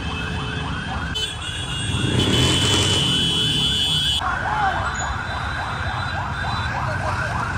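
Siren sounding a fast yelp, sweeping up and down about three or four times a second over steady traffic noise; about four seconds in it gets louder and brighter. A steady high tone sounds alongside it for a few seconds near the start.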